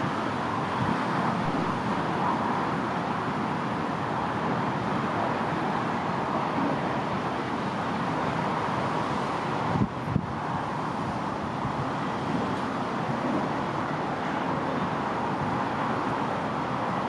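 Steady rushing noise of a barge underway, with a brief knock about ten seconds in.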